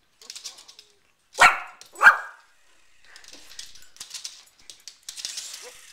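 A small curly-coated dog barks twice in quick succession, about two-thirds of a second apart, at a toy RC helicopter. Around the barks, light clicks and scuffles as the dog paws at the toy on the hardwood floor.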